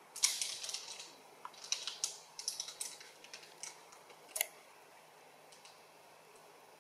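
Irregular crackly rustling and small clicks, bunched in the first three seconds, with one sharper click about four and a half seconds in.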